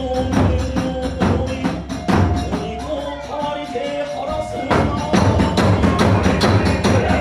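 Kagura hayashi playing: taiko drum strokes and clashing small hand cymbals (tebyoshi) under a bamboo flute (fue) melody. The drumming grows denser and louder about five seconds in.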